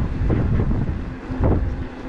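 Wind buffeting the microphone in uneven gusts, loudest about one and a half seconds in, over a faint steady hum.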